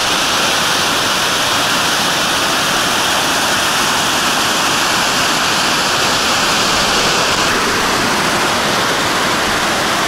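Mountain waterfall falling down a rock face and its stream rushing over stones below: a loud, steady rush of water.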